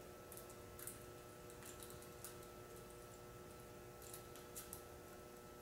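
Faint, irregular metallic clicks and ticks of a lock pick working the pins of a Master Lock padlock, a few scattered ticks over a low steady room hum.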